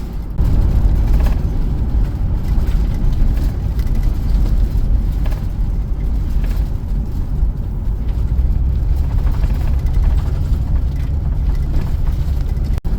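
Car driving along a road: a steady low rumble of engine and tyre noise, briefly dropping out near the end.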